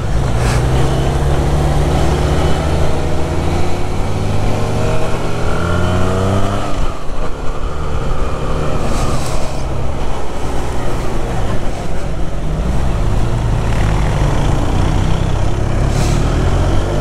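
Benelli 302R motorcycle's 300 cc parallel-twin engine running under way, its pitch rising over a few seconds and then falling back about seven seconds in. Wind rushes over the microphone throughout.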